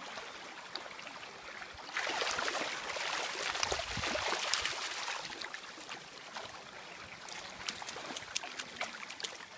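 Floodwater rushing past a bank, a steady noisy wash that gets louder for a few seconds from about two seconds in, with scattered small splashes near the end.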